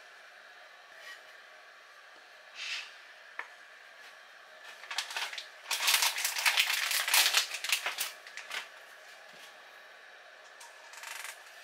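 Handling clatter of small metal objects, light clicks and rattles, around a homemade aluminium-can alcohol stove as it is readied for fuelling. A few single clicks come first, then a busy stretch of rattling in the middle, and one short rustle near the end.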